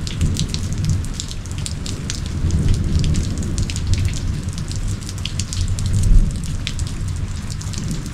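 Distant thunder rumbling low and long, building and loudest about six seconds in. It arrives long after the lightning flash, so the strike is far off. Steady rain falls throughout, with many separate drop ticks.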